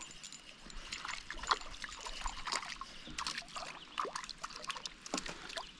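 Water splashing and trickling in small, irregular spatters as a hooked panfish is brought in beside the kayak.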